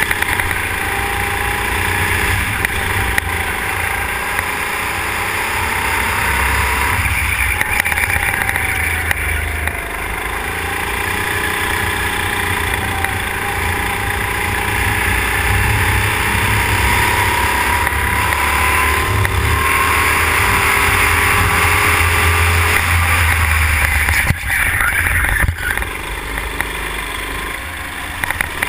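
Go-kart engine heard from the kart itself, running hard along a straight with its pitch rising slowly, then falling and picking up again in choppier spells near the end through a tight corner.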